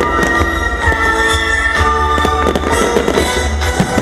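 Fireworks bursting in a rapid run of pops and crackles, over music with long held notes.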